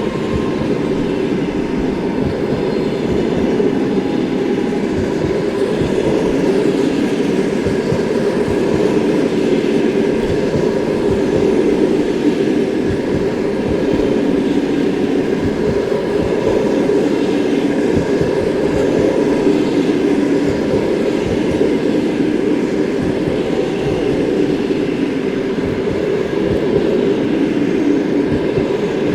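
Passenger train hauled by an EP2K electric locomotive rolling past, a steady loud rumble of the carriages with a dense, continuous clatter of wheels on the rails.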